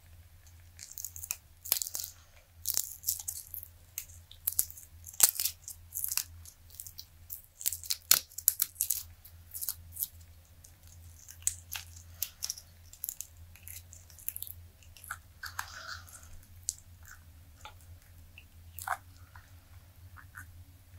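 Silicone dice mold being flexed and peeled off cured resin dice: irregular crackling and sharp snapping as the resin releases from the mold, dense and loud through the first half, then sparser.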